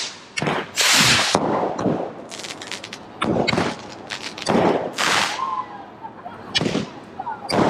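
Fireworks going off: a string of loud bangs and crackling bursts at uneven intervals, some drawn out to about a second, with a quick patter of small cracks in between.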